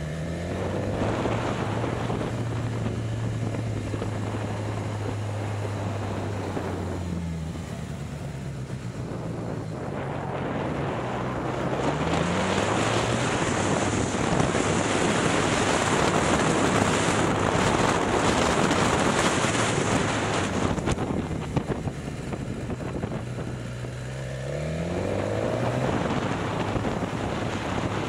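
BMW S1000XR's inline-four engine running at low revs, rising in pitch three times as the throttle opens. Heavy wind buffeting on the microphone swells in the middle stretch and nearly covers the engine.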